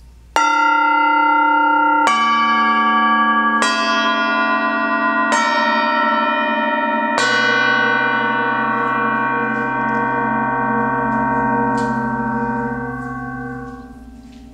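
UFIP Ictus Lokole gongs struck one after another with a mallet: five strokes, each adding a new bell-like pitch, all ringing on together. Near the end the ringing is cut short as a gong is damped by hand.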